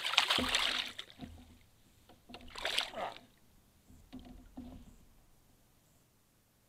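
A hooked bass thrashing and splashing at the surface right beside a kayak: a big splash at the start, another about two and a half seconds in, and a smaller one about four seconds in as the fish is lifted from the water.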